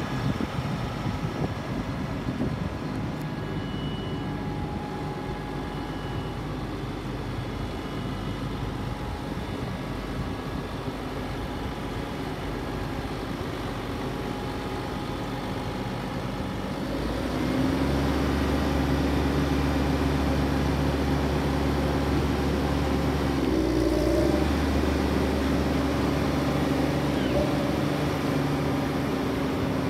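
Diesel engine of a Caterpillar Challenger rubber-tracked tractor running steadily; a bit over halfway through it steps up to a higher, louder speed and holds there.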